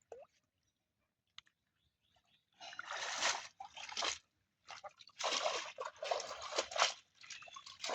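Water splashing and sloshing in bursts, starting about two and a half seconds in after near silence, three times in all.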